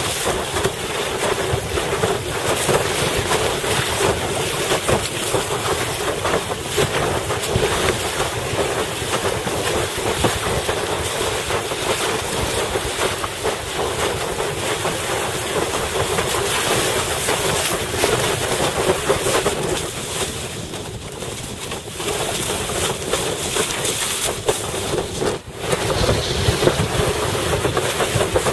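Steady wind buffeting a helmet-mounted camera's microphone, mixed with water rushing and slapping under a windsurf board moving over choppy water. It eases for a couple of seconds about two thirds of the way through.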